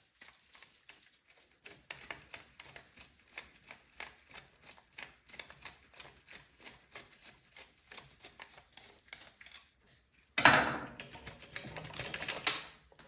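Light, rapid clicking, about three or four clicks a second, as a tool works the main jet loose from a small-engine carburetor. About ten seconds in, a louder noisy rustle follows and lasts a couple of seconds.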